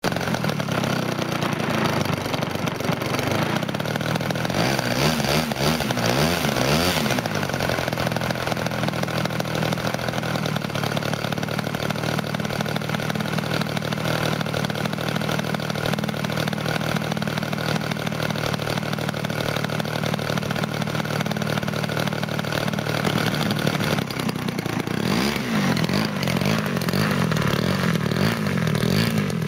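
DLA 112cc twin-cylinder two-stroke gas engine of a large model aeroplane running. It is revved up and down a few times about four seconds in and again near the end, and holds a steady speed in between.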